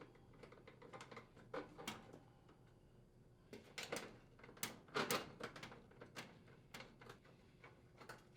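Scattered faint clicks and light metal knocks as an oven door latch is fitted through a slot in the range's sheet-metal front panel and its two screws are driven in with a screwdriver.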